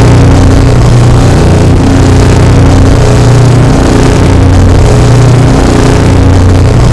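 Vine boom sound effect layered on itself so many times that it merges into one continuous, heavily distorted, very loud roar with a deep droning hum underneath.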